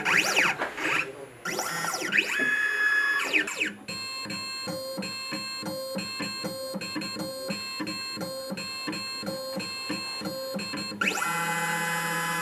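Stepper motors of a 3D Extreme key cutting machine tracing a key: whining pitches that sweep up and down as the tracer moves, then a steady multi-pitched whine with fast regular pulsing for several seconds, before more sweeping whines near the end.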